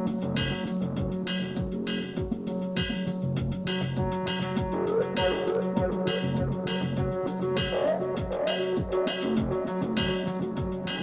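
Electronic loop music: a sequenced Korg MS-20 mini synthesizer line, run through a delay, over a repeating drum-machine beat with a steady kick and bright hi-hat.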